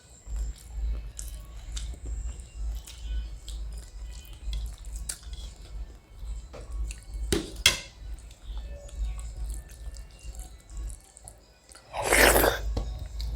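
Background music with a low pulsing beat under close-miked eating sounds: scattered mouth clicks and smacks as food is chewed. A loud noisy burst, lasting about half a second, comes near the end.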